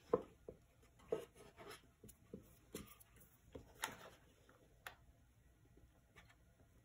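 Faint, scattered taps and light rubbing of hands handling pom-poms and tools on a painted wooden box frame and cutting mat. A few sharper taps come in the first few seconds, then it goes quieter.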